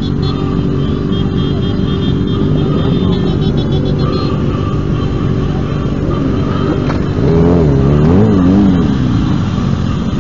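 Motorcycle engines running at low speed in a slow-moving group, with one engine revved up and down several times about seven seconds in.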